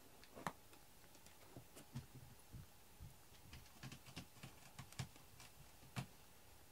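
Cat stepping and pawing about in plastic litter boxes: faint, irregular scratches and clicks of litter and claws, with a few sharper clicks about half a second in and near the end.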